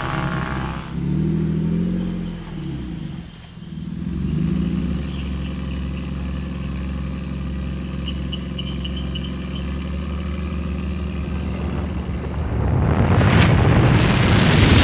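4x4 off-road vehicle engine revving up and down on a steep climb, then running steadily, with a faint high chirp repeating about twice a second. Near the end a rising whoosh swells up loud.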